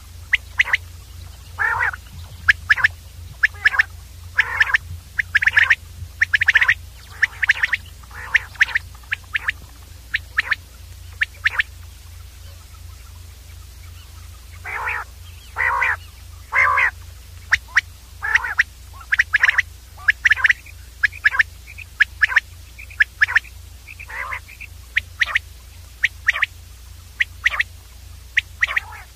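Common quail calling over and over in short, quick notes that come in clusters, with a pause of a couple of seconds about halfway through. A steady low hum runs underneath.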